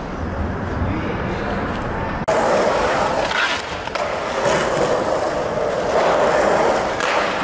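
Skateboard wheels rolling on concrete, with a few sharp clacks of the board. The sound changes abruptly about two seconds in, from a low rumble to a steadier, higher rolling sound.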